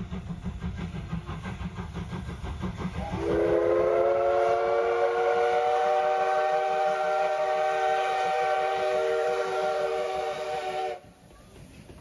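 Motorcycle engine running for the first three seconds. Then a loud, steady whistle of several tones at once sounds for about eight seconds and cuts off abruptly near the end.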